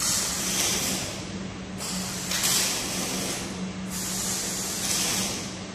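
Hissing of compressed air in three long surges of about two seconds each, over a steady low hum from the automatic spraying machine.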